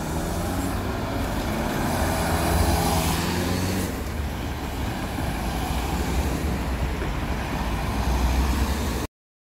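Road traffic driving over a level crossing close by: a delivery van, a Toyota pickup and a Toyota people carrier pass one after another, engines running and tyres on the road. The sound cuts off suddenly near the end.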